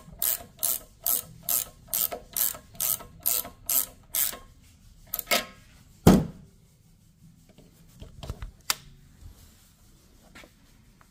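Ratchet wrench clicking in steady strokes, about two and a half a second, as it runs the nut down the stud of a valve spring compressor, squeezing the valve springs on a Cummins 24-valve cylinder head. The ratcheting stops about four seconds in, followed by a few light clicks and one loud knock about six seconds in.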